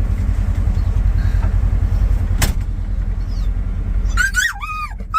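A vehicle engine idles with a steady, pulsing low rumble, with a single sharp knock about halfway through. Near the end a dog starts whining in high, rising and falling cries.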